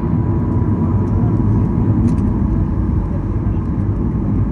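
Cabin noise inside a Boeing 737-800 taxiing on the ground, its CFM56 turbofan engines running at low thrust: a steady low rumble.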